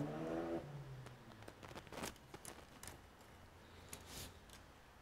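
A low hum rising in pitch stops about half a second in. It is followed by scattered light clicks and taps of small metal laptop parts being handled on the open chassis.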